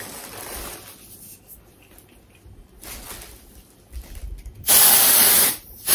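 Colab aerosol dry shampoo can spraying onto hair: one steady hiss lasting about a second, near the end. A few fainter short sounds come before it.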